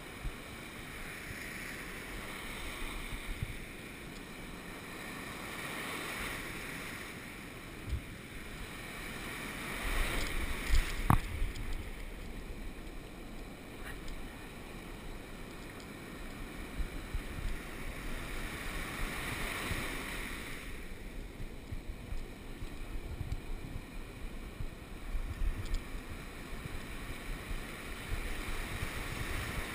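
Ocean surf breaking and washing in around the legs, swelling and fading every several seconds, with wind rumbling on the microphone.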